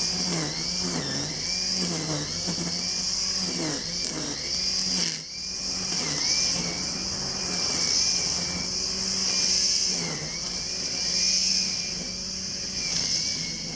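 Motor of a grass-cutting machine running, its pitch dipping and recovering again and again for the first few seconds as it takes load, then running steadier. High-pitched insects shrill in swelling waves behind it.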